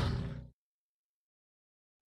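The tail of a loud rumbling sound effect dies away within the first half second, followed by complete digital silence.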